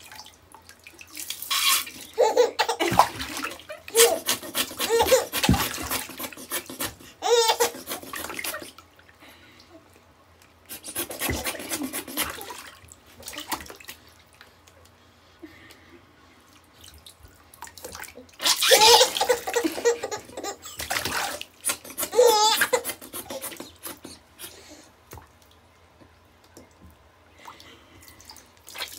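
A five-month-old baby laughing in about six bouts of giggles with quieter gaps between them, with bathwater splashing in a plastic infant tub.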